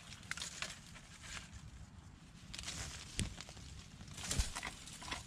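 Bare feet squelching through wet mud, an uneven run of steps, with two heavier thuds about three and four seconds in.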